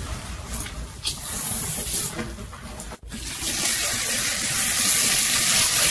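Soapy sponge scrubbing a stainless-steel sink in uneven strokes. After a brief break about three seconds in, tap water runs steadily into the sink, a little louder than the scrubbing. AI-generated ASMR-style audio.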